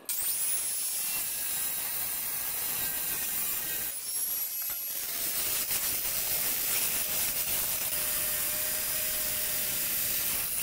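Electric angle grinder starting up and cutting steel plate with a cutting blade of the kind said to outlast abrasive discs. It runs as a steady high whine under load, easing off briefly about four seconds in.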